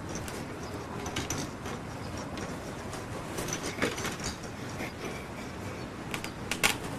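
Scattered plastic clicks and knocks from a baby handling the toys on a plastic baby walker's tray, the loudest near the end, over a steady background hiss.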